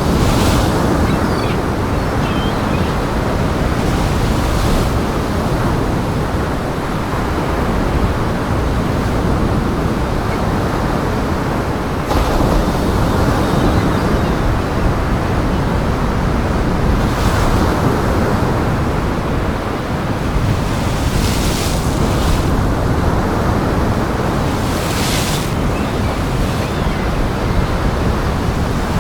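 Big waves surging and crashing in strong wind, a steady rush with a louder hissing wash every few seconds.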